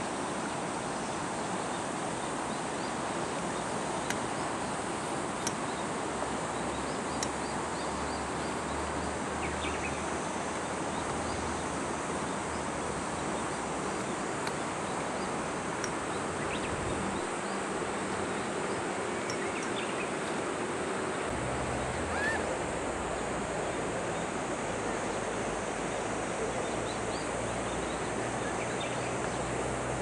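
Steady outdoor river ambience: an even rushing noise with a few faint ticks, and a low rumble that comes and goes.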